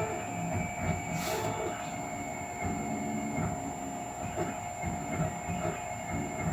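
Anet AM8 3D printer printing at an acceleration setting of 1250 mm/s². Its stepper motors give short whirring tones that jump in pitch every fraction of a second as the printhead shuttles back and forth, over a steady high whine.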